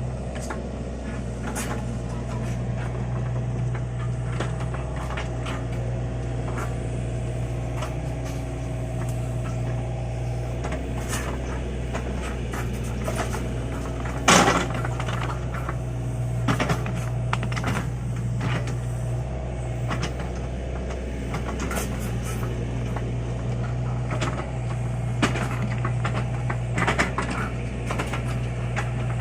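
LiuGong mini excavator's diesel engine running steadily under work, with scattered clanks and knocks from the machine and one louder bang about halfway through.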